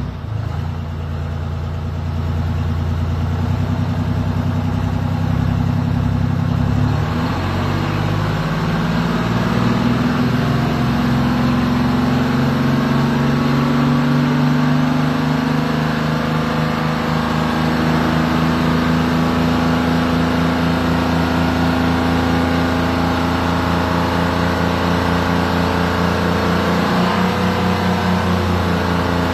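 Detroit Diesel 8V71 two-stroke V8 diesel running at idle in a cab-over truck. Its idle speed rises a little around seven to ten seconds in, then holds steady apart from a brief dip near the end.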